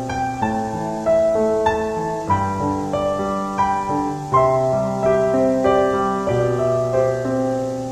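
Slow piano music: sustained notes struck about once a second over low bass notes that change every couple of seconds.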